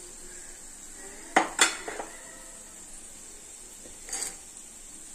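Steel slotted skimmer clinking against the pan and bowl while fried green peas are scooped out of the oil: two sharp clinks about a second and a half in, then a softer one, and a few more near the end.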